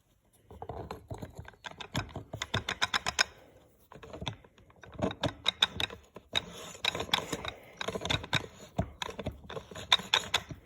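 Rapid metallic clicking and rattling of E4OD transmission clutch drum assemblies being turned and jiggled against each other to get their clutch splines to engage, in bursts with a short pause about four seconds in.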